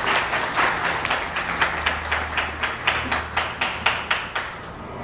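Audience clapping, dense at first, then thinning to a few evenly spaced claps that die out about four and a half seconds in.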